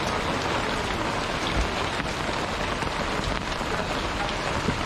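Steady rain falling on a tarpaulin shelter and wet ground, with two dull thuds, one about a second and a half in and one near the end.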